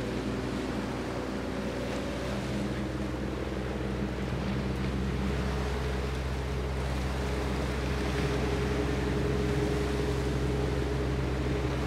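Steady low engine drone of a large patrol ship underway across open water: several held humming tones that shift a few seconds in, over a constant rush of wind and water.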